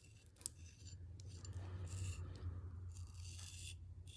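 A sharp 1075 steel knife edge shaving arm hair in several short scraping strokes, with a sharp click about half a second in. The edge is still shaving after the wood and paper cutting.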